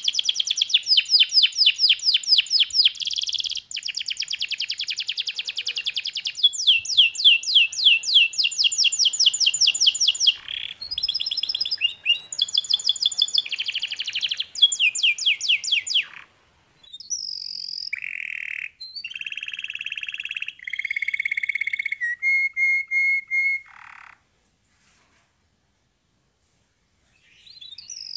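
Domestic canary singing: long runs of very fast trilled notes, then slower rolled and whistled phrases, with a pause of about three seconds near the end.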